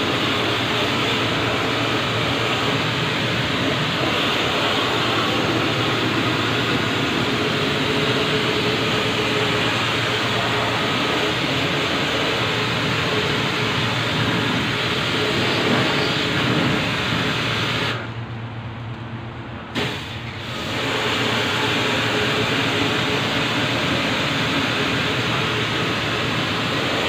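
Water spray washing down a refrigeration evaporator unit: a steady hiss over a low machine hum. The spray stops for about two seconds roughly two-thirds of the way through, and again briefly just after, while the hum carries on.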